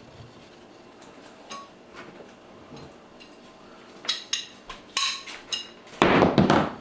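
Light metallic clinks of hand tools against metal, several with a short ringing tail, then a louder, longer clattering scrape near the end.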